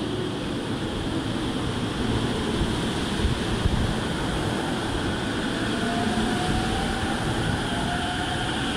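JR East E231-500 series electric commuter train pulling out and accelerating: wheels rumbling along the rails, with the electric traction motors' whine rising slowly in pitch from about five seconds in.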